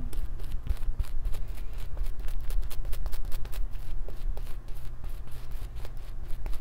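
Shaving brush with a mixed synthetic and badger knot scrubbing lather over the neck and beard: a continuous run of quick scratchy brush strokes.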